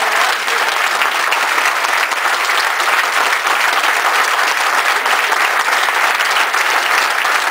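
A large audience clapping steadily in a sustained ovation, many hands at once blending into an even wash of applause.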